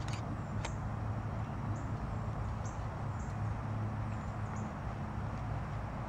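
Outdoor ambience: a steady low hum, with small birds giving short high chirps over and over. Two sharp clicks come in the first second.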